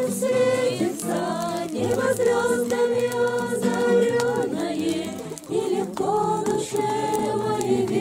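A mixed group of voices singing a slow Christian song together to a strummed acoustic guitar, with a brief lull about five seconds in.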